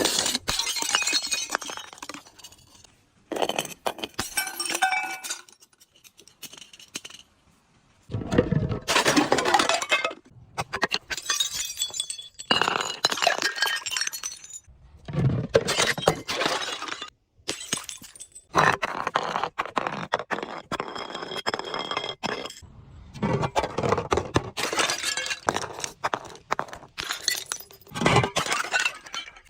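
Glass bottles breaking and being crushed, with crunching and shards clinking. It comes as a string of bursts, each a second or two long, separated by short pauses.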